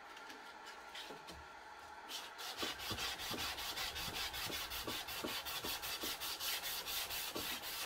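400-grit sandpaper on a wooden sanding block, rubbed back and forth by hand across a wooden board as a fine-grit stage of hand finishing. After a quiet start, quick, even scratchy strokes begin about two seconds in and keep a steady rhythm of a few strokes a second.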